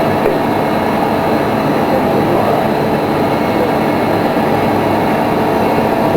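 Steady, loud mechanical drone of running industrial machinery, with a few constant tones and no breaks or knocks.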